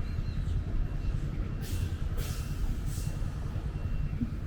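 Busy street traffic: a steady low rumble of passing vehicles, with three short hisses in the middle, a bus's air brakes releasing.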